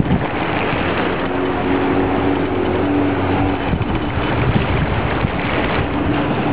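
Jet ski engine running at low speed as it circles on the water, a steady drone under heavy wind noise on the microphone.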